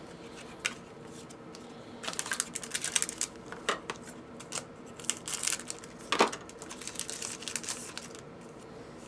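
Foil trading-card pack wrappers crinkling and tearing as packs are opened by hand, in irregular bursts of crackles, with a sharp snap about six seconds in.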